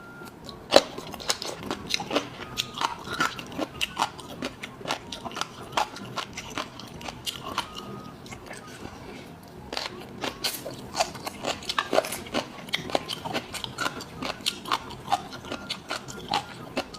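Close-miked mouth sounds of biting and chewing crisp food: a dense run of crunchy clicks, easing into a short lull about halfway through before picking up again.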